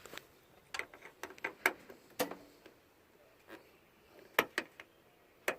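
Irregular sharp clicks and light knocks as a screwdriver tightens the screw holding a plastic replacement sliding-door handle, which is still loose in its mount.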